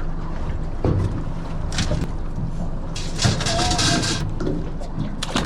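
Boat engine running steadily, with knocks and clatter of handling on deck and a rushing burst of noise about three seconds in.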